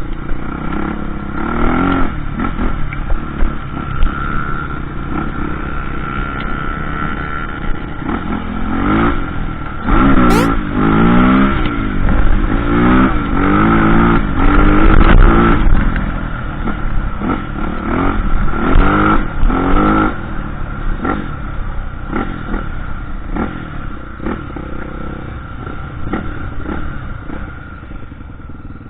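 Off-road trail motorcycle engine revving up and down again and again under throttle, with the hardest run of rev swings about a third of the way in, over a steady engine drone and some clatter.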